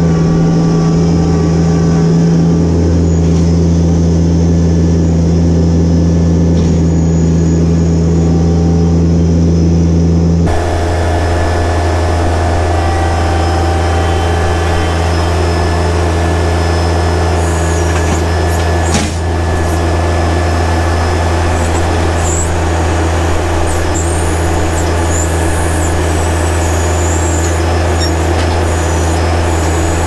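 Yanmar compact tractor's diesel engine running steadily at a constant pitch while its backhoe digs and levels dirt. A single clunk comes about two-thirds of the way through.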